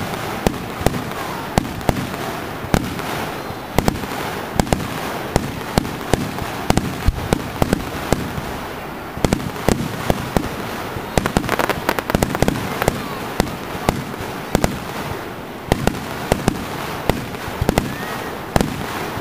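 Fireworks display: a rapid, irregular string of sharp bangs and pops, several a second at times, over a continuous crackling hiss.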